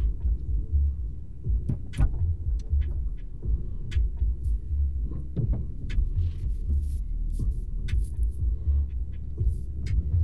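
Car engine and road rumble heard inside the cabin as the car pulls away and drives slowly, uneven and low, with scattered sharp clicks throughout.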